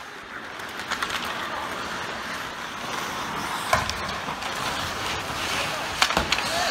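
Ice hockey play: skates scraping across the ice as a steady hiss, with sharp cracks of sticks and puck, the loudest about four seconds in and again about six seconds in.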